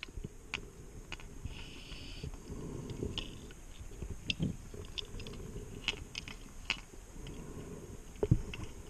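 Underwater sound picked up by a scuba diver's camera: a low rumble with scattered clicks and ticks, several a second at times.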